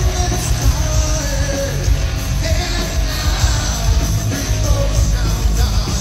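Hard rock band playing live: a lead singer's sung, held vocal lines over distorted electric guitar, bass and drums, heavy in the low end.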